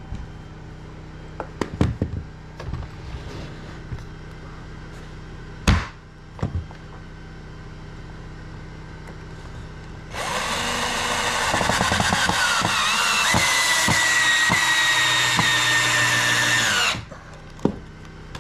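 Cordless drill running for about seven seconds as it is pressed into a pine board while truss pieces are fastened together. Its whine sinks slightly toward the end. Before it come a few sharp wooden knocks from the boards being handled.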